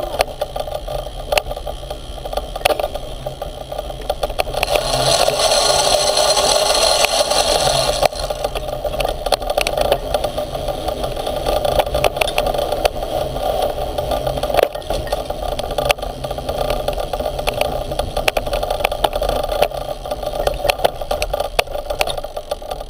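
Electric off-road board riding over a dirt track: the drive motor runs steadily under a constant rattle and clatter from the frame and drive as it goes over bumps. The sound swells louder and hissier for about three seconds around five seconds in.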